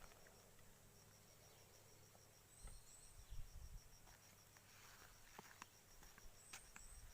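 Faint outdoor ambience: an insect's steady high-pitched pulsing trill, evenly spaced, with a few faint clicks in the second half.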